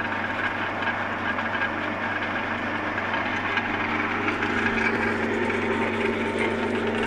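Axminster AS609 belt and disc sander running with nothing on it: a steady electric-motor hum under an even whir from the belt and disc.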